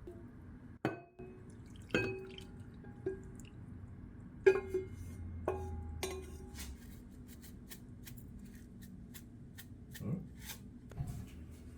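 Dishes and utensils clinking: about six sharp knocks with a short ring in the first half, then a run of lighter ticks and taps.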